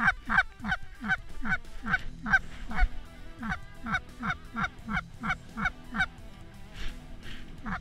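Goose honking: a rapid, even series of loud two-note honks, about three a second.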